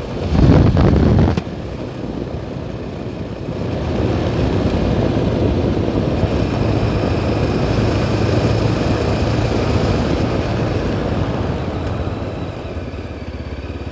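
Yezdi Adventure motorcycle's single-cylinder engine running under way, with road and wind noise. It grows louder a few seconds in and eases off near the end. About half a second in, a loud rush of wind on the microphone lasts about a second and is the loudest sound.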